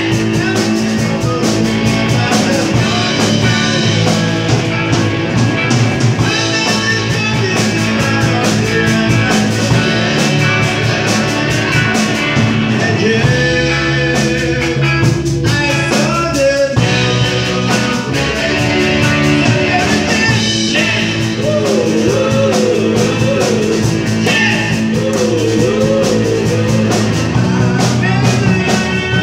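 Live rock band playing: electric guitars over a drum kit, with a steady beat throughout.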